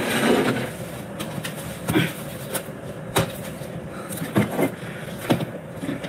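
Scattered knocks and light clatter from things being handled and a tray being set down on a table, about eight separate knocks over several seconds.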